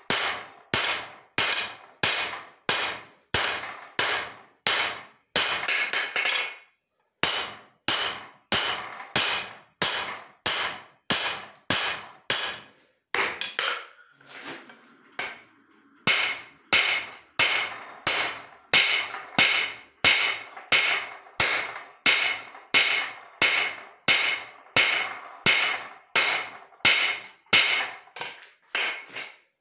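Hand hammer striking leaf-spring steel on an anvil in steady forging blows, about two a second, each ringing briefly. Near the middle the blows pause for a few seconds, then resume.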